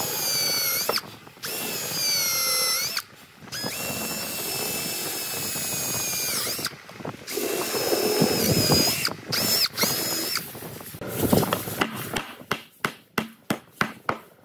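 Cordless drill boring into old, weathered wood with a twist bit, run in several bursts of a few seconds each. The motor whine climbs as each burst starts and drops away as it stops. Near the end comes a quick string of short, sharp sounds.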